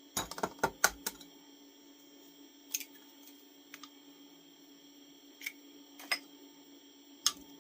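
Sharp clicks and knocks of kitchen utensils and a mixing bowl being handled: a quick cluster in the first second, then four single clicks spread over the rest, over a steady low hum.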